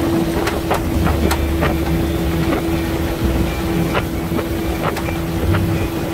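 Boat outboard motor running at a steady pitch as the boat cruises, with wind on the microphone and frequent short sharp clicks over it.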